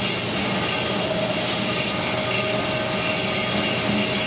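Steady machine running noise: an even whirr with a constant hum, unchanging throughout.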